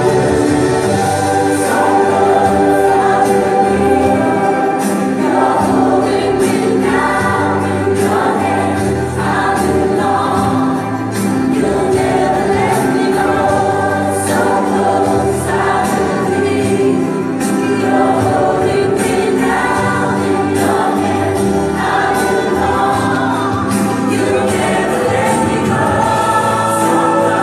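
Gospel song with choir singing, played through loudspeakers as backing for a dance.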